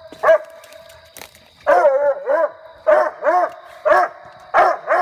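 Coonhound barking treed: about nine short, loud barks, each rising and falling in pitch, coming in quick runs after a pause of about a second near the start. This is the tree bark of a hound that has a raccoon up the tree.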